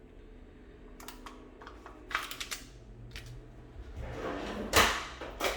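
A spoon clicking and scraping against a plastic yogurt pot and the mixing bowl as yogurt is spooned into cake batter, sparse light clicks at first, then busier and louder scraping near the end.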